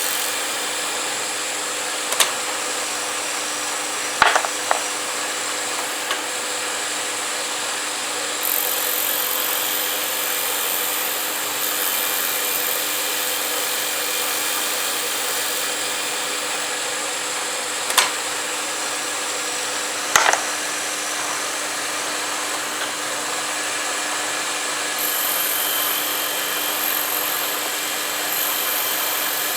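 Small lathe running steadily with a cutting tool working a briar and acrylic cigarette-holder part, a steady hum under a rough cutting hiss that changes every few seconds. A few sharp clicks stand out: two near the start and two more in the second half.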